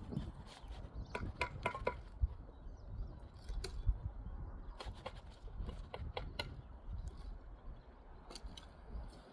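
Scattered clicks, taps and scrapes of hand masonry work on brick and mortar, irregular and unrhythmic, over a low rumble.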